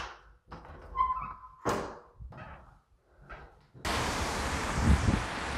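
A metal door knob turning and a door opening and shutting: clicks, a short squeak about a second in, and a thunk, with a few lighter knocks after it. About four seconds in the sound cuts to a steady outdoor hiss of a wet street.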